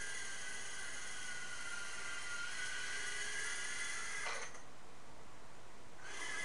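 Stock brushed motors and propellers of a Tiny Whoop micro quadcopter whining in flight, the pitch wavering slightly as the throttle changes. About four seconds in the whine drops sharply in pitch and stops as the quad comes down, then near the end the motors spin up again briefly.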